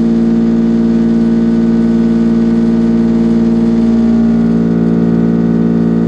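Walter BLAXX F5241 porcupine milling cutter with tangential inserts cutting 42CrMo4 steel: a loud, steady machining hum of several held tones, shifting slightly about four seconds in.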